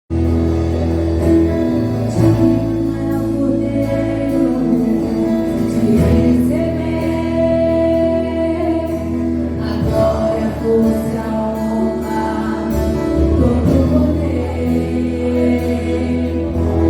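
Christian worship song: singing over instrumental accompaniment with a sustained low bass.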